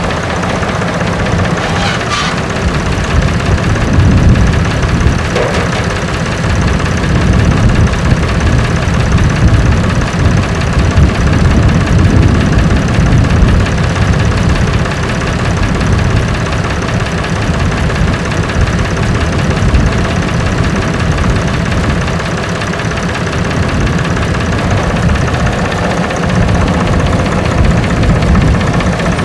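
Tractor engine running steadily, a loud low rumble with no break.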